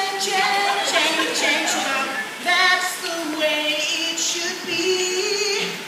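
Young voices singing into microphones, with several long held notes in the second half.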